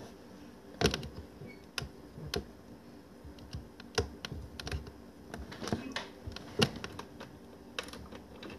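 Scattered hand taps and clicks close to the microphone: about a dozen sharp, irregularly spaced clicks over several seconds, with a faint steady hum behind them.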